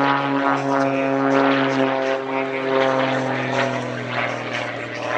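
Single-engine aerobatic propeller plane's piston engine and propeller giving a steady drone, the pitch sagging slightly about two seconds in.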